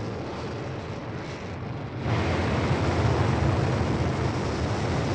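Rumbling, hissing rocket-thruster sound effect for the Mars descent stage's engines firing, stepping up louder about two seconds in and then holding steady.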